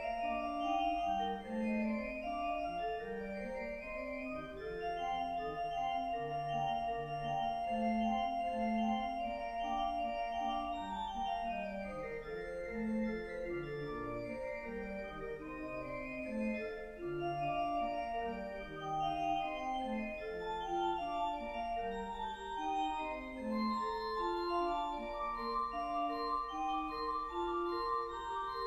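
Church pipe organ played from a multi-manual console, several lines of notes moving at once over sustained tones. About midway a high note is held for several seconds while the lower parts move under it.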